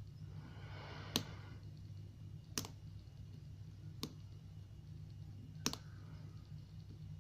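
Four sharp metallic clicks from a lock being worked by hand, about one and a half seconds apart, with a soft scrape just before the first.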